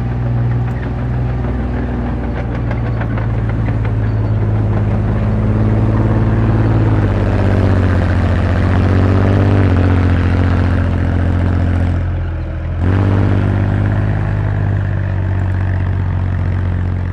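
Restored King Tiger (Tiger II) tank driving on its tracks, its heavy engine running with a steady low drone whose pitch wavers a little. The sound dips briefly about twelve seconds in.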